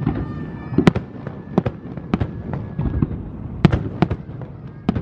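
Aerial fireworks shells bursting: sharp bangs at irregular intervals, about five of them, the loudest about a second in and again past the midpoint, over a continuous low rumble of further bursts.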